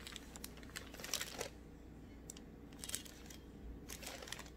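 Faint, scattered rustles and light clicks of a household iron being pressed and moved over parchment paper on a fabric face mask.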